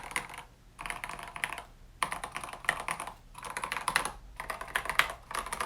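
Typing on a COX CK108 mechanical keyboard with Gateron Yellow linear switches and tall SA-profile keycaps: about five short bursts of rapid keystrokes with brief pauses between them.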